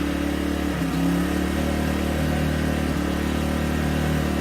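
Gentrax EC800i 800 W inverter generator running steadily on choke just after a restart, its engine note shifting briefly about a second in.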